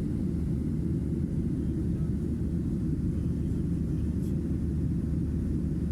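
Airliner's engines and airflow as a steady low rumble heard inside the cabin during takeoff.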